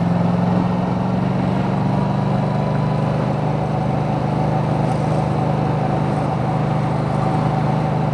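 Yamaha MT-07's parallel-twin engine with an Akrapovic titanium exhaust, running steadily at an even speed, with wind and road noise, heard through a microphone inside a full-face helmet.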